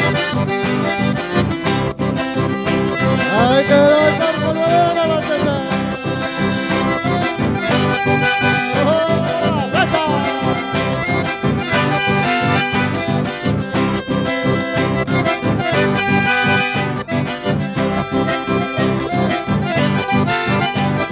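Accordion-led dance music with a steady beat, played loud through a PA.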